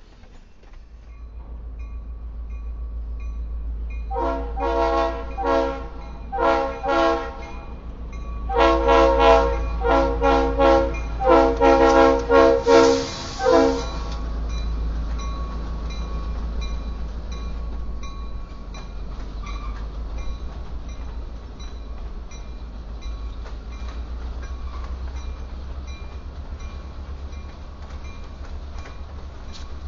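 Locomotive air horn sounding a series of long and short blasts, each a chord of several notes, over the low rumble of an EMD GP38-2 diesel locomotive's two-stroke V16 engine. Once the horn stops, the locomotive's engine and the freight cars rolling past keep up a steady rumble with faint wheel clicks.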